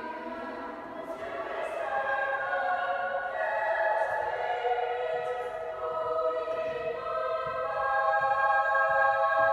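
A choir singing in a large church, holding long chords that change every second or two and grow louder in the second half.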